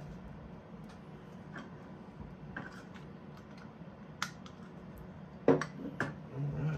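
Scattered light clicks and taps of hands handling the RC truck's battery and charging lead, the sharpest about five and a half seconds in, over a faint low hum.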